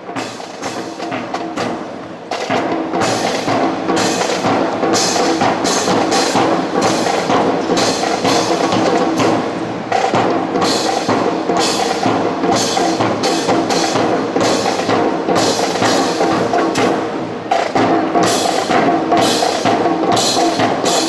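Music with a steady percussive beat of sharp, clacking strokes, getting louder about two seconds in.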